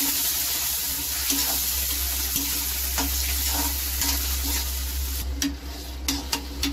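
Onion and capsicum in chilli sauce, ketchup and soy sauce sizzling in an aluminium kadhai while a metal spoon stirs and scrapes the pan. About five seconds in the sizzle quietens and sharp clinks of the spoon against the pan stand out.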